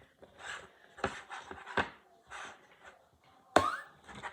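Blue slime being squeezed and worked in the hands, giving a run of short wet squelches and, about three and a half seconds in, a louder weird noise that sounds like a fart as air is forced out of it.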